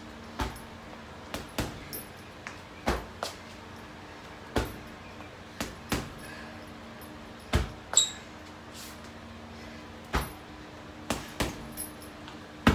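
Boxing gloves punching an Everlast heavy bag: irregular thuds about one or two a second, some in quick pairs, over a steady low hum.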